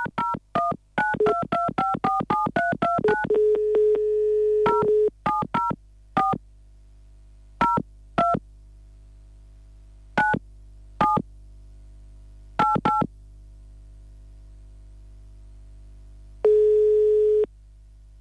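Telephone keypad tones being dialled, over a faint steady hum. About a dozen quick key beeps come in the first three seconds, then a steady dial tone for a couple of seconds. Slower, scattered key presses follow, and one tone lasting about a second comes near the end.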